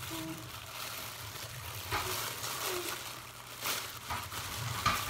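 Thin plastic shopping bag crinkling and rustling as loose paper hamster bedding is scooped into it with a plastic bowl. There are louder crinkles about two seconds in, near four seconds and near the end.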